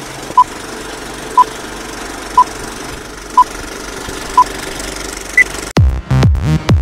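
Film-leader countdown sound effect: short beeps one second apart over a steady mechanical film-projector rattle, the last beep higher in pitch. Near the end the countdown cuts off and electronic music with a heavy, thudding bass beat starts.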